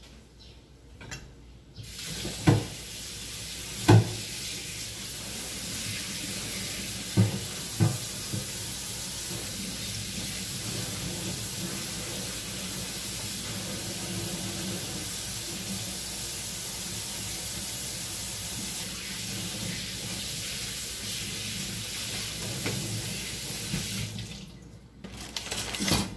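Kitchen tap running steadily, a rushing hiss that starts abruptly about two seconds in and cuts off near the end. A few sharp knocks come in the first eight seconds.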